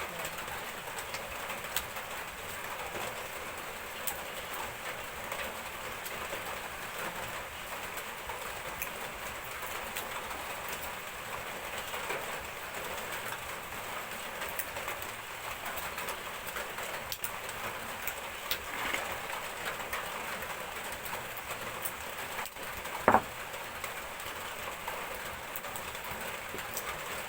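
Steady rain falling, with faint bird chirps and scattered small clicks; one sharp knock about 23 seconds in.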